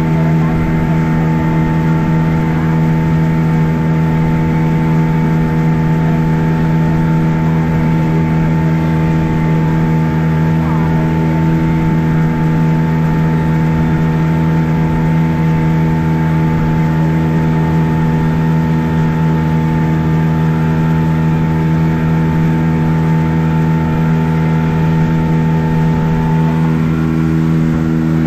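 Boat's outboard motor running steadily at constant speed, its even hum unbroken throughout, with a slight change in tone near the end.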